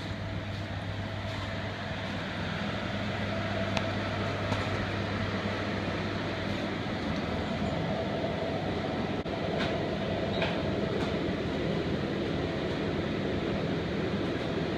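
Steady mechanical hum and rumble of supermarket background noise, with a few faint clicks.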